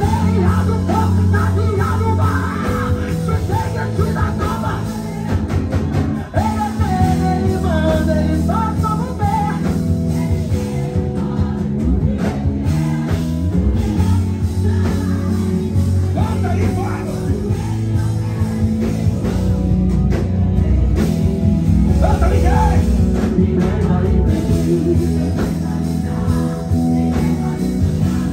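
Live gospel worship music: a band with electric bass and keyboard plays sustained chords while a voice sings over it.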